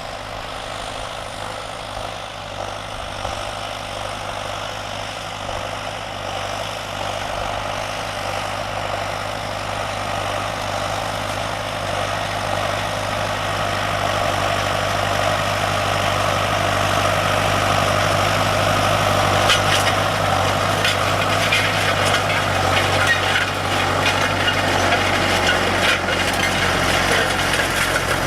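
Farm tractor engine running steadily and growing gradually louder. From about two-thirds of the way through, a rapid clattering rattle joins it.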